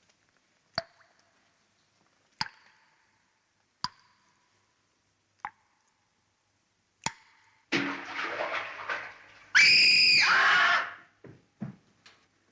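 Five slow, separate footsteps on a hard floor, about one every second and a half. Then comes a short stretch of splashing water and a loud scream of about a second and a half that drops in pitch at its end.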